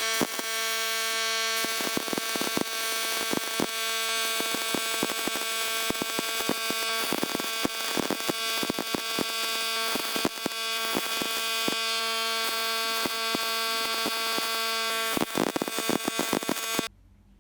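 Small electric power tool running at a steady speed with a buzzing whine, and rapid scratchy clicks as it works against the part. It cuts off suddenly near the end.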